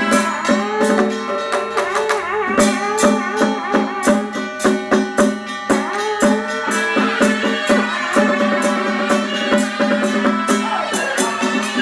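Live traditional Taiwanese temple ritual music: a melody line that slides between notes, over dense, fast drum and cymbal strikes.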